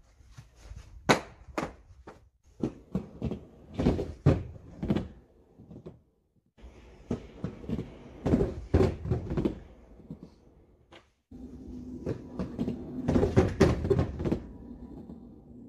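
Aggressive inline skates knocking and clacking against a grey pipe rail on a wooden base and a small wooden quarter-pipe ramp: a string of sharp knocks and thuds from landings and stalls, with wheels rolling between them. The sound cuts out briefly twice.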